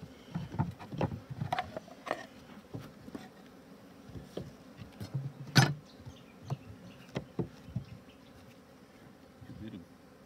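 Honeybees buzzing around an open hive, with wooden cover boards being knocked and shifted into place on the hive top; one sharp knock about halfway through is the loudest sound.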